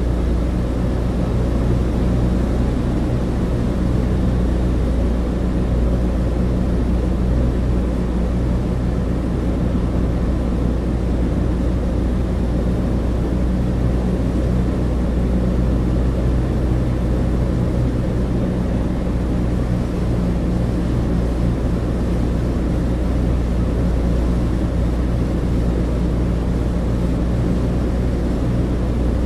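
Cabin interior of a Douglas DC-3, its two piston radial engines and propellers giving a steady deep drone with several layered low tones and an even rushing noise above them.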